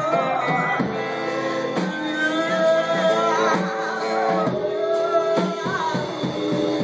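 Live rock band playing: a woman singing lead over electric guitar and a drum kit.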